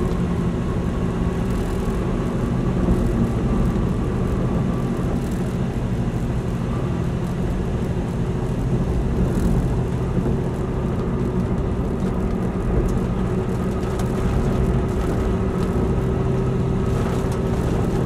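Steady car-cabin noise while driving on a wet road in rain: an even engine drone with a hiss of tyres and rain underneath, heard from inside the car.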